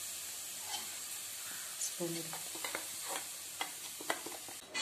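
Sliced shallots and curry leaves sizzling in coconut oil in a nonstick pan, stirred with a wooden spatula that knocks against the pan several times. The sizzle drops away near the end.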